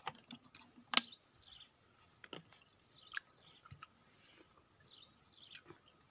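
Scattered sharp clicks and knocks, the loudest about a second in, over repeated short falling chirps of birds.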